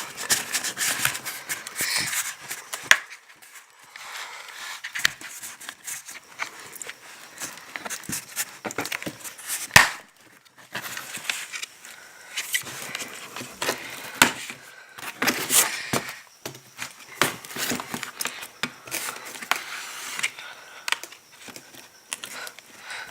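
A hard plastic card being worked along the seam of a Lenovo Yoga 500 laptop's bottom cover, scraping on the plastic with irregular sharp clicks as the case clips give. The loudest snap comes about ten seconds in.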